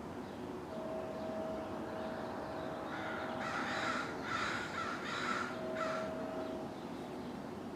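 A crow cawing four times in quick succession, the last call short.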